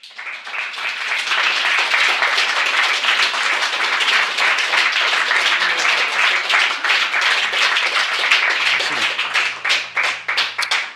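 Audience applauding, the dense clapping thinning out to scattered separate claps near the end.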